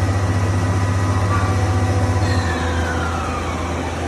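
Doosan Puma VT900 vertical turret lathe running with its chuck spinning a steel workpiece: a steady low machine hum. A faint whine falls in pitch through the second half.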